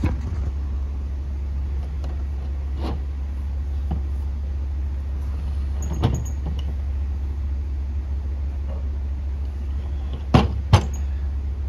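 An aluminum small-block cylinder head being flipped over on the bench: a few light clicks, then two sharp knocks in quick succession near the end as the head is set down, over a steady low hum.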